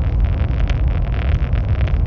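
High-speed train running at speed: a steady low rumble and rushing noise with faint irregular clicks.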